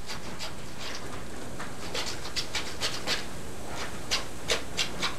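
Irregular sharp clicks and rattles of caged animals pacing and shifting on wire-mesh cages, a dozen or so, over a steady hiss.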